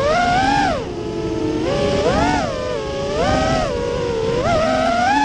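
Brushless motors and three-blade props of a 5-inch FPV racing quadcopter, heard from the onboard camera, whining with a pitch that rises and falls in about four swells as the throttle is worked.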